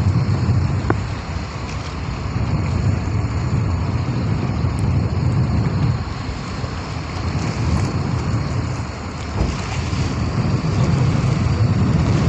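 Tourist boat's engine running steadily, mixed with wind buffeting the microphone and the sea.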